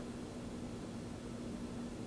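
Turn of the Century Energy Select ceiling fan running steadily: a constant low motor hum over a soft rush of moving air.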